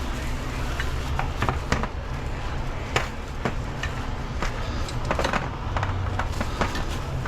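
Scattered light clicks and knocks of parts and tools being handled, over a steady low hum.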